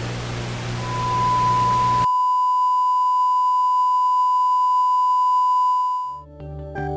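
TV static hiss with a steady test-tone beep fading in about a second in; the static cuts off sharply at about two seconds, leaving the pure colour-bar test tone on its own. The tone stops near the end as music begins.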